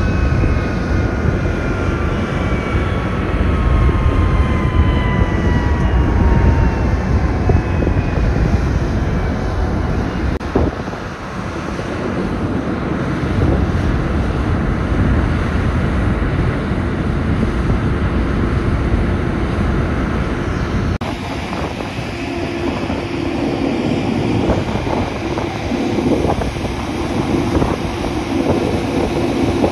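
Embraer E190's twin jet engines winding down after shutdown: a whine falling steadily in pitch over the first several seconds, over a low rumble. Later, wind on the microphone and a steady low hum.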